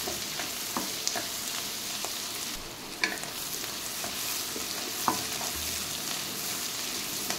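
Chopped onions sizzling and frying in hot oil in an aluminium kadhai, stirred with a wooden spatula that knocks against the pan a few times.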